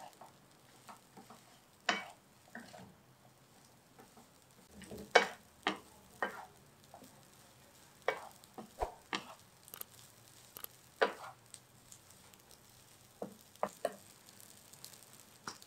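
A wooden spatula scraping and knocking against a non-stick wok as fried rice is stir-fried, in irregular strokes a second or two apart, over faint sizzling.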